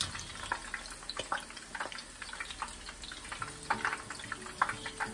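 Ukoy (shrimp and bean-sprout fritters) deep-frying in a wok of hot oil, the oil sizzling with a steady crackle of small pops and a few sharper pops about four seconds in. A wire spider strainer stirs through the oil.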